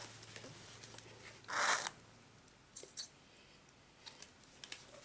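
Quiet handling noises from gloved hands with paint cups and bottles: a short rustling hiss about a second and a half in, then a few light clicks and ticks.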